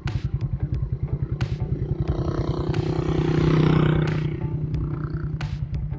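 Yamaha R15 V2's single-cylinder engine idling with a fast, even exhaust pulse. About two seconds in, a louder, fuller engine sound swells up over the idle and fades again within about two seconds.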